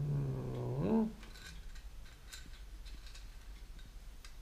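A man's voice giving a drawn-out, wordless "hmm" that rises in pitch at the end. Then come a few faint, light clicks and taps.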